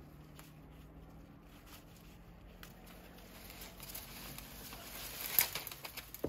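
Leaves and stems rustling as wild greens are picked by hand, faint at first and busier in the second half, with a sharp click about five and a half seconds in.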